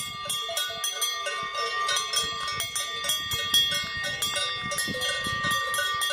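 Cowbells on grazing cows clanging, several bells ringing at once with irregular, overlapping strikes.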